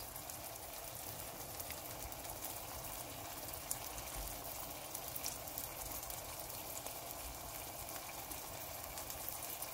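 Eggs frying in olive oil in a stainless steel pan on a stove turned up toward high: a steady, quiet sizzle with faint scattered crackles.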